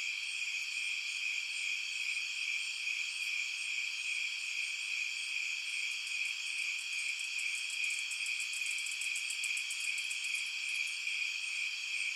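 Summer-night insect chorus: several insects, crickets among them, trilling steadily in a high layered drone. From about six seconds in, a fast pulsing chirp rises over it near the top of the range for about five seconds, then drops away.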